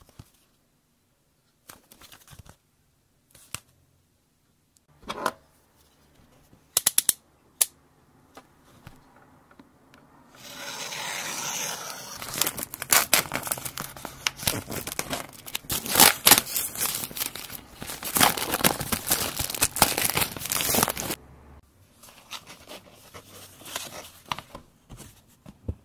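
Plastic shrink-wrap on a cardboard puzzle box being slit with a utility knife and peeled off, crinkling and crackling loudly for about ten seconds from roughly ten seconds in. Before it come scattered light taps and clicks of the box being handled, and near the end softer rustling as the cardboard box is opened.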